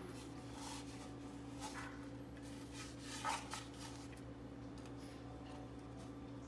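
Paintbrush scrubbing and dabbing on paper in several short scratchy strokes, over a steady low hum, with a sharper sound about three seconds in.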